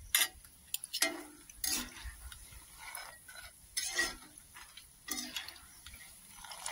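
A perforated metal skimmer stirring and scraping through gram-flour-coated peanuts deep-frying in oil in a metal kadai, in uneven strokes about once a second, over light sizzling with a few small sharp pops. The peanuts are still frying and not yet done.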